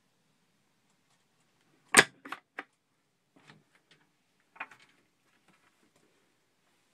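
A cabinet door in an Airstream travel trailer being shut. There is one sharp knock about two seconds in, then a couple of lighter latch clicks, and a smaller knock a couple of seconds later.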